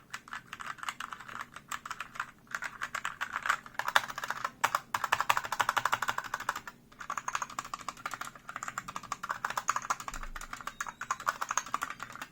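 Fast typing on a mechanical keyboard with Gateron Red linear switches: a rapid, continuous run of keystroke clacks, broken by a few brief pauses.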